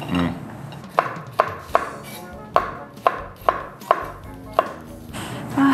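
Cleaver chopping wild bitter melon into thin slices on a wooden cutting board: a string of sharp, unevenly spaced knocks, about two or three a second.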